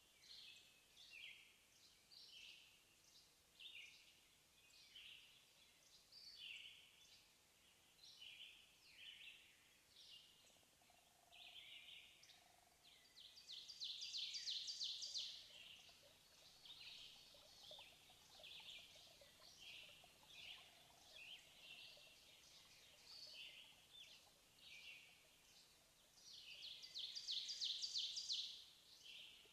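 Spatula scraping through thick curry masala in a nonstick pan: soft scratchy strokes about once or twice a second, with two louder, longer rasping stretches about halfway through and near the end.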